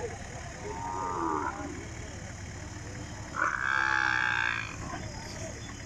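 Cattle mooing twice: a shorter, fainter call about a second in, then a louder call lasting over a second in the middle, over a steady low murmur of a crowded livestock market.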